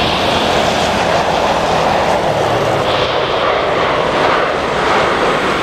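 A jet airliner's engines running: a loud, steady rush of noise with a high whine that fades early on and comes back about three seconds in.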